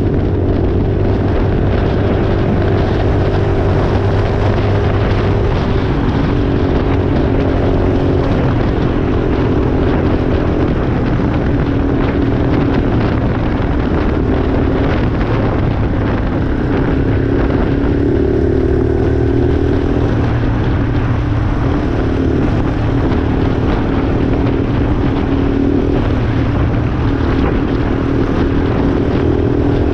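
Yamaha Raptor 350 quad bike's single-cylinder four-stroke engine running under way on the road, its pitch shifting up and down a few times in the middle with throttle and gear changes, over steady wind and road noise.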